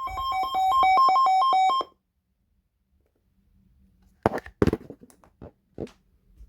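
Rapid electronic alert beeping, switching quickly between two pitches, for about two seconds, then stopping. About two seconds later come several sharp clicks.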